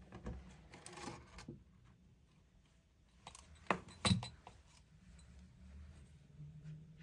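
Small household objects being handled and set down: a short rustle about a second in, then two sharp clinks close together midway.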